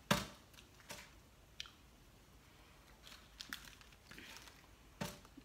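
Close-up eating and food-handling sounds: chewing, with a few sharp clicks and taps as chicken nuggets and sauce cups are picked from a tray, the loudest right at the start.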